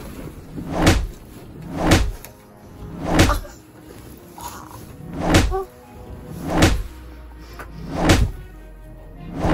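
A series of dull thuds of blows landing on a person, about one every second and a bit, with background music under them.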